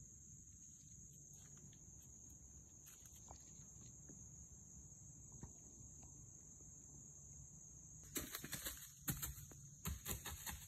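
Faint, steady high-pitched insect chorus in the woods. About eight seconds in comes an irregular burst of crunching and crackling in dry leaf litter as a young deer runs off.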